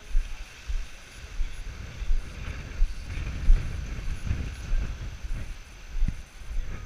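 Wind buffeting the microphone in a low rumble, with dull thumps at a walking pace, about one every three quarters of a second, as the camera is carried along.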